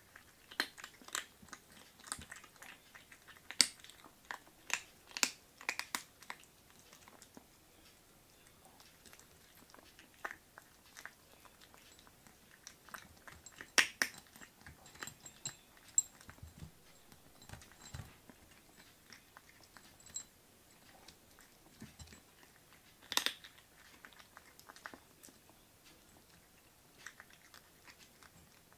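Kittens crunching dry kibble: irregular small crunches, busiest in the first six seconds and sparser after, with a few louder crunches about 4, 14 and 23 seconds in.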